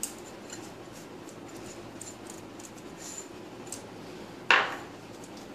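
Faint glass ticks as baking powder is tipped from a small glass bowl into a glass mixing bowl. About four and a half seconds in comes one short, loud clack of a glass bowl being set down on a stone counter.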